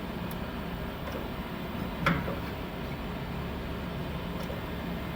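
Knuth RSM 1500C cylindrical grinder running, a steady hum from its spindle and drives while the wheel head in-feeds. A short click about two seconds in.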